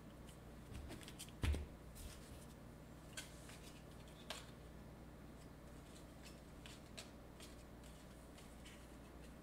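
Faint handling noises of trading cards being picked up off a table: a soft knock about one and a half seconds in, then a few light clicks and taps, over a steady low hum.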